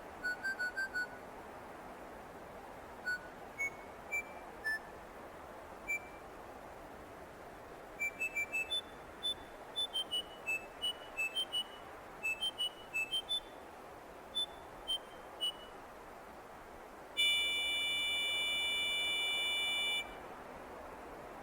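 A series of short electronic beeps at changing pitches, some in quick runs of four or five, then one steady electronic tone held for about three seconds near the end.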